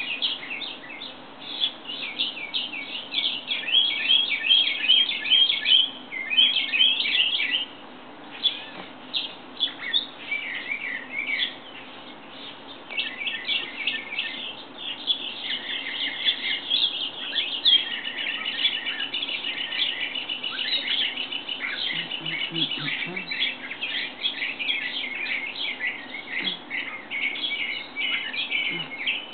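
Songbirds chirping and singing: many quick high calls, with a long rapid trill in the middle.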